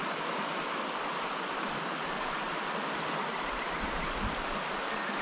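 Mountain stream flowing, a steady even rush of water over the riverbed.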